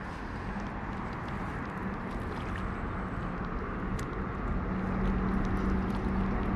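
Spinning reel being cranked to bring in a hooked fish, over steady outdoor noise; a steady low hum grows louder about halfway through.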